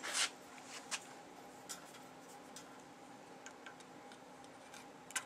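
Faint clicks and light taps of a dial caliper and steel saw blades being handled and set up for a thickness measurement, the clearest tap about a second in, over a steady faint hum.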